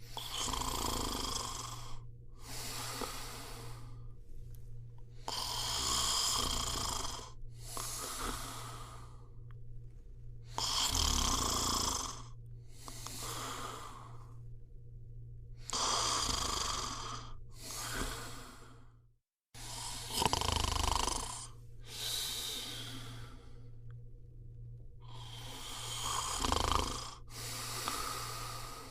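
A person snoring, each breath in and out a noisy rasp, in pairs about every five seconds, over a steady low hum. The sound cuts out briefly about two-thirds through.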